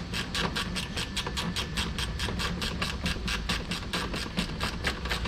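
10 mm ratcheting wrench clicking quickly and evenly, about six clicks a second, as a headlamp mounting bolt is turned. A steady low hum runs underneath.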